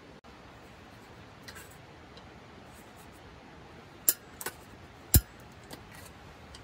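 SOTO CB-canister gas stove being lit: a few sharp clicks of its push-button piezo igniter, the loudest about five seconds in, as the gas catches.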